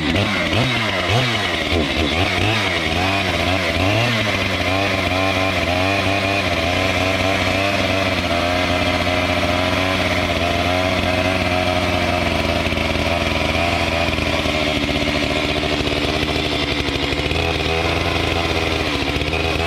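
Stihl MS 462 two-stroke chainsaw running hard while cutting through a laptop: its pitch rises and falls over the first few seconds, then holds at a steady high speed, over a lower steady engine hum.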